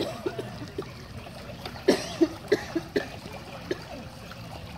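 Pool water splashing and plopping in a string of short slaps, the loudest cluster about halfway through, as a small child pats the water with his hands.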